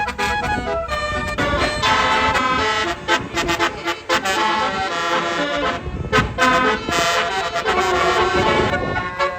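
Tour bus's basuri telolet horn, a multi-trumpet musical air horn, playing a tune of held notes that change every fraction of a second.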